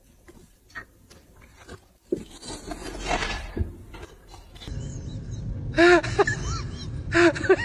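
Light scraping and clicking, then, after a cut, a small dog's short high yelps, each rising and falling in pitch, in two quick bursts.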